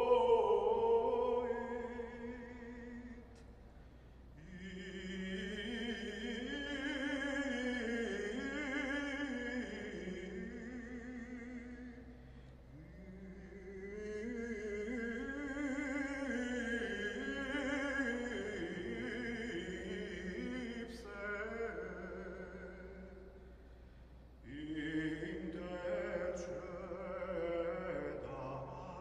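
Benedictine choir singing a chanted Alleluia, the voices carrying long melodic phrases with short breaks between them.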